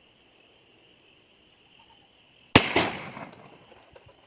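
A single shotgun blast about two and a half seconds in, trailing off over about a second. Before it, a faint steady high insect chirring.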